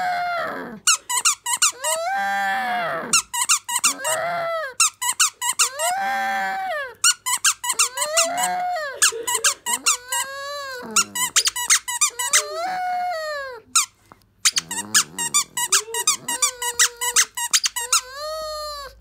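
A pug chewing a squeaky toy: the squeaker sounds in about ten long squeaks that rise and fall in pitch, with rapid bursts of short squeaky clicks in between.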